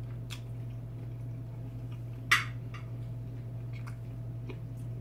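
A fork clinking against a dinner plate a few times, with one sharper clink a little over two seconds in, over a steady low hum.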